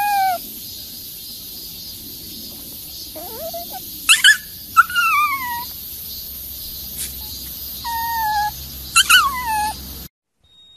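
Small white fluffy dog giving a string of high-pitched, whining howls, about five calls, each sliding down in pitch. The sound cuts off abruptly near the end.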